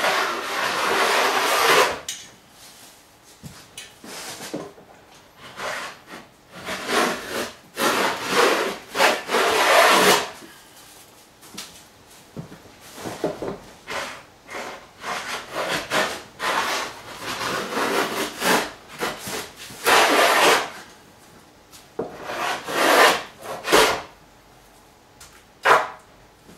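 A Stanley No. 50 combination plane cutting a bead along the edge of a wooden cladding board. It goes in a series of long strokes, each a second or two, with short pauses and smaller scrapes between them, as the blade shaves the wood.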